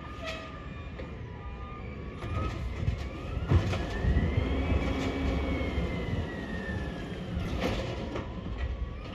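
Garbage truck's engine revving up and back down as it works its hydraulics, a whine rising and falling over about four seconds in the middle, with a sharp knock about three and a half seconds in and another near the end.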